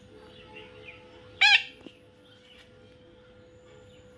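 A parrot gives one short, loud, high call about a second and a half in, over faint bird chirps and a steady faint hum.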